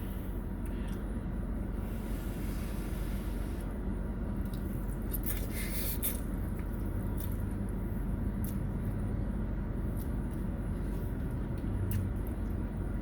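Eating noodle soup against a steady low rumble and hum: small clicks of utensils and the container, with a short slurp-like noise about five to six seconds in.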